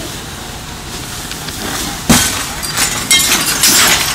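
Window glass being broken out: a sharp knock about two seconds in, then a clatter of shattering and falling glass. This is typical of firefighters taking out windows with a hook to vent a house fire.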